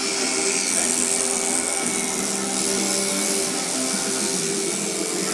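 Electric shearing handpiece running steadily as it cuts through an alpaca's fleece, a motor hum with a hissing buzz on top.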